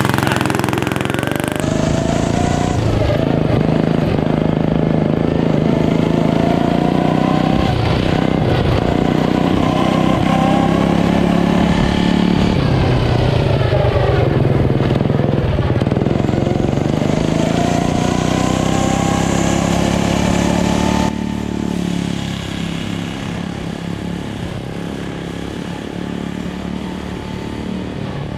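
Small single-cylinder go-kart engine running hard on a lap, its pitch rising and falling again and again as the kart speeds up and slows for turns. About three-quarters of the way through it suddenly becomes quieter and heard from farther off.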